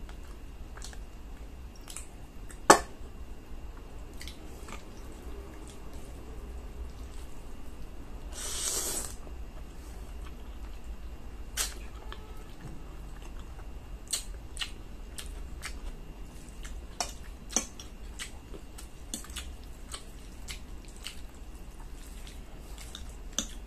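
Close-up eating sounds: a metal fork clinking and scraping on a ceramic plate while spaghetti is twirled and eaten, with chewing. A single sharp click comes about three seconds in, and a short hissing burst just before the nine-second mark.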